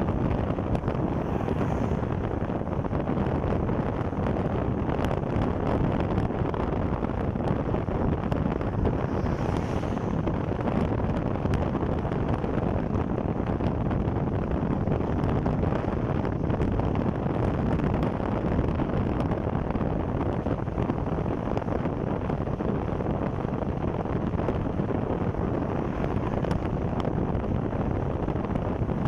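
Steady wind rush on the microphone of a moving motorcycle, mixed with road and engine noise.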